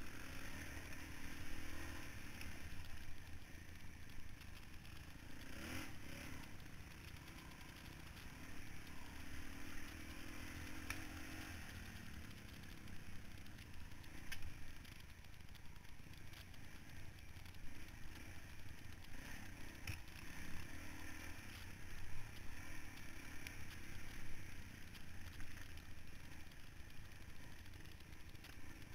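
Dirt bike engine running at low, varying throttle, its note rising and falling, with occasional knocks and rattles from the bike jolting over rocks and roots.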